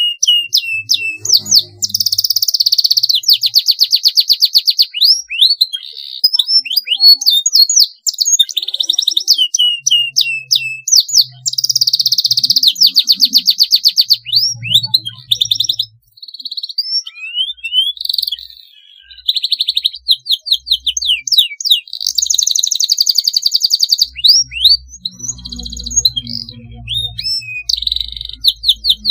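Domestic canary singing a long continuous song: long, very fast rolling trills alternating with quick sweeping whistled notes. The longest, densest rolls come about two, twelve and twenty-two seconds in.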